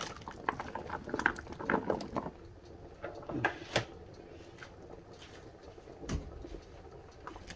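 Chunks of pumpkin tipped from a plastic container into a pot of simmering soup: a run of irregular soft splashes and knocks over the first few seconds, then the pot simmering quietly, with a low thump about six seconds in.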